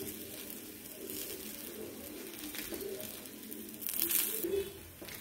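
Faint sizzling of a methi dhebra, a bajra-flour flatbread, cooking on a hot ghee-sprayed tawa, with a brief louder hiss about four seconds in. A low, wavering cooing call sounds underneath.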